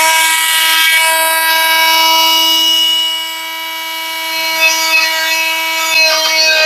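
Parkside PAMFW 20-LI B2 cordless oscillating multitool running at full speed, a steady high buzzing whine as its blade cuts into wood. The sound drops in level for about a second a little past halfway, then comes back with a few light clicks near the end.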